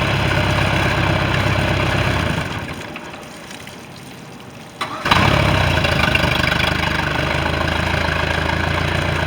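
Mercruiser 3.0 four-cylinder marine engine running steadily, then dying away to a stop about two and a half seconds in. Near the five-second mark a brief crank catches it at once and it runs again at a steady idle.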